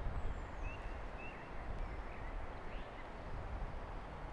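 Wind buffeting the microphone with a low rumble, and a songbird's short, high chirps, several of them in the first three seconds.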